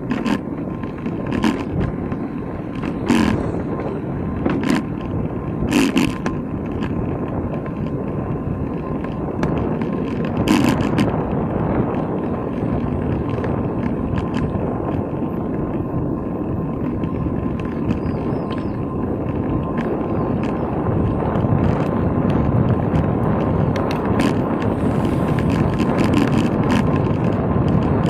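Bicycle riding noise picked up by a camera mounted on the bike: steady tyre rumble with wind on the microphone, and sharp knocks or rattles now and then during the first dozen seconds.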